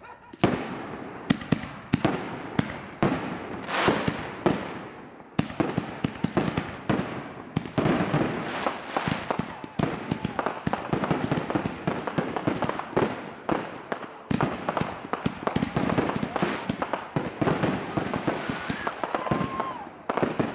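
Ground-launched fireworks firing a rapid barrage of sharp shots, bangs and crackles, packed close together almost without pause. The barrage starts about half a second in, after a brief lull.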